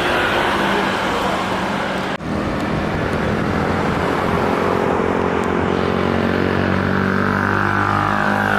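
Loud, steady engine noise carrying several pitched tones that shift in pitch during the later seconds, broken by a sudden brief dip about two seconds in.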